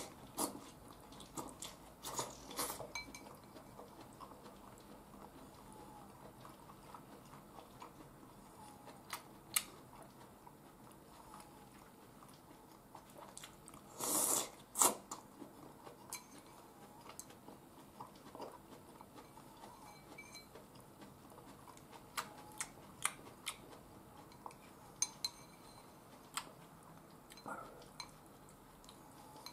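Someone eating soup from a porcelain bowl with chopsticks: scattered clicks of the chopsticks against the bowl and quiet chewing, with one loud slurp of soup and greens about halfway through.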